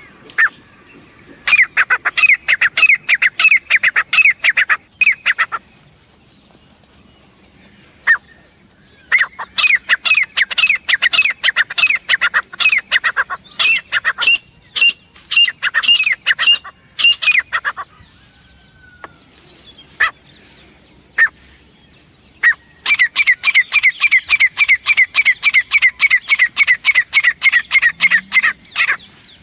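Grey francolin calling: three long bouts of rapid, shrill repeated notes, about four a second, with a few single notes in the pauses between bouts.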